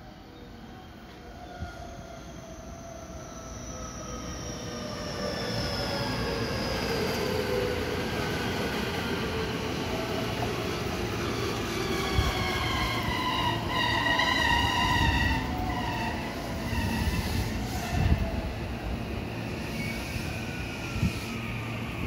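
JR West 223 series electric train pulling in and slowing: several whining motor tones fall steadily in pitch as it comes closer and gets louder. A cluster of higher squealing tones comes about midway, and a few sharp knocks from the wheels come in the second half.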